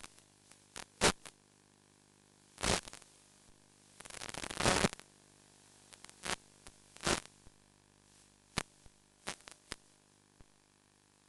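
Irregular bursts of crackling static over a faint steady hum, from the audio of an analog FPV video link. There is a sharp crackle about a second in, a longer run of rapid crackling around four to five seconds in, and scattered pops after that.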